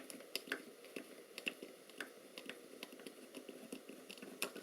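Faint, irregular small clicks and light taps of a hand tool working small screws in a metal assembly.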